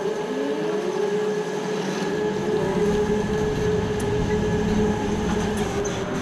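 Engine speeding up, its pitch rising, then holding a steady high-pitched drone.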